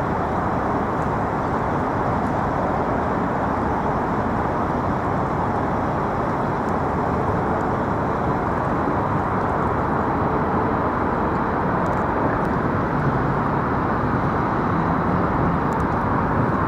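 Steady outdoor background roar with no distinct events, even and unchanging throughout.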